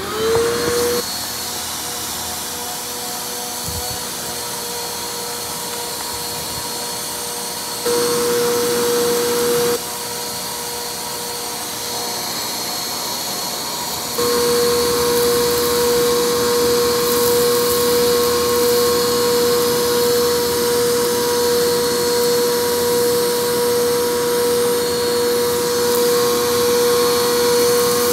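Bissell PowerForce Compact vacuum cleaner switched on, its motor spinning up into a steady whine as the hose sucks at a pile of dirt. The sound gets louder for a couple of seconds about eight seconds in, and again from about fourteen seconds on.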